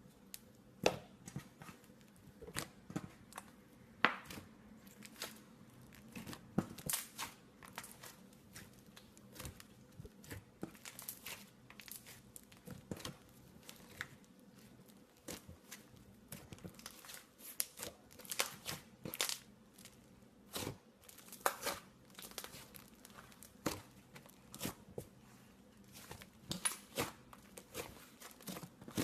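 Slime being handled, pressed and stretched by hand, giving irregular crackling clicks and pops.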